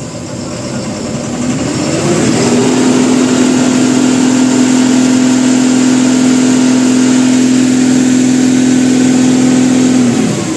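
Mahindra Blazo BS6 truck's diesel engine speeding up from idle about two seconds in, then held at a steady raised speed and dropping back near the end. The engine has a light knock, which the mechanic traces to a faulty number-two injector that is also making it smoke.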